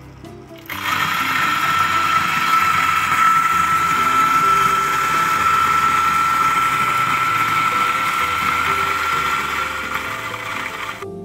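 Eureka Mignon Oro Single Dose flat-burr coffee grinder starting up about a second in and grinding a dose of espresso beans: a steady high whine over a noisy rush. It fades and stops near the end as the dose runs through.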